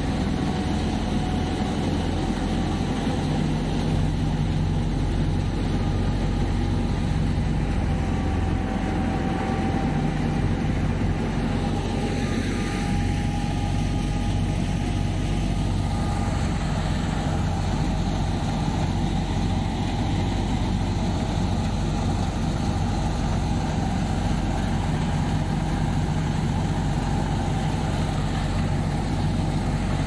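Fiat 480 diesel tractor engine and the wheat thresher it drives, running steadily under load as sheaves are fed into the threshing drum: a continuous heavy drone.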